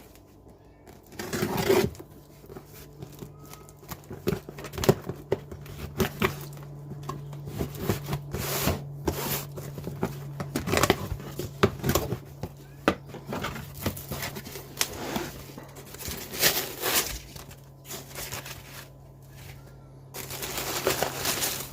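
A shipped parcel being opened by hand: packaging crinkling and tearing, with scattered clicks and knocks as it is handled, and longer tearing noises about a second in and near the end.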